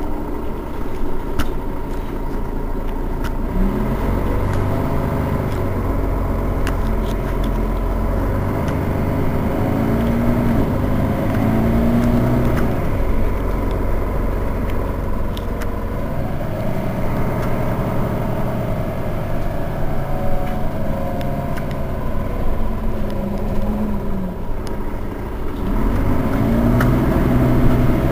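Mercedes-Benz Citaro Facelift city bus idling at the stop, heard from behind at its rear engine end: a steady low engine rumble with a thin steady whine, and a few slow rises and falls in pitch.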